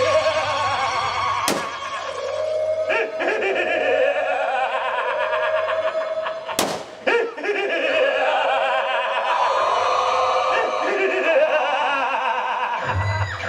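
Amplified stage-drama sound: a man's drawn-out, wavering vocalising over backing music, cut by two sharp bangs, one about a second and a half in and another about six and a half seconds in.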